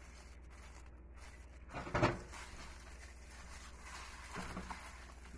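A plastic-gloved hand mixing pork ribs with brown sugar and marinade in a glass dish: soft handling noises, with one louder knock about two seconds in and a few softer ones near the end.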